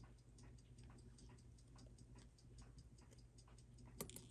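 Faint, steady ticking of a timepiece, about five to six ticks a second, with a couple of sharper small clicks near the end.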